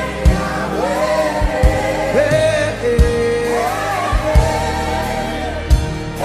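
Gospel worship music: a voice sings a held, gliding melody over a band, with drum hits spread through it.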